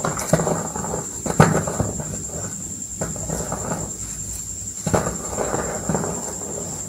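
Reformed gym chalk block being crushed by hand: sharp cracks as pieces snap, near the start, at about a second and a half and again about five seconds in. Between the cracks is a dry, crumbly crunching of chalk breaking up and powder sifting through the fingers.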